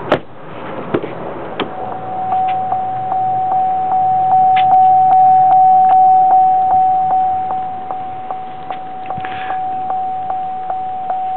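Chevrolet Avalanche's dashboard warning chime dinging in an even, repeating pattern about two and a half times a second, after a knock and a few clicks at the start.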